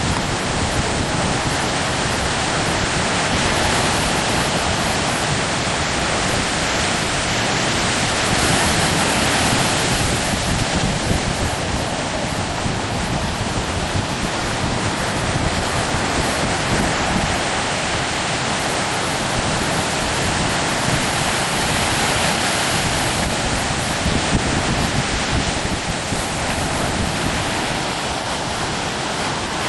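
Strong storm wind blowing hard over the microphone: a loud, steady rush of noise that swells and eases slightly without letting up.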